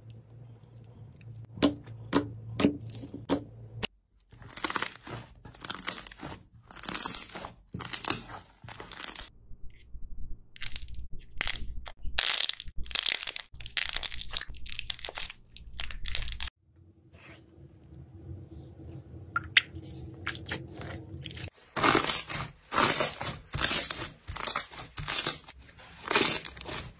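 Crunchy slime being squeezed and pressed by hand, with dense, irregular crackling and popping. The sound changes abruptly a few times from one short clip to the next.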